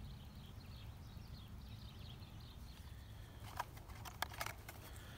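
Faint outdoor ambience: a low rumble with small birds chirping faintly in the distance. About three and a half seconds in come a few sharp clicks and taps, as of a cardboard box being handled.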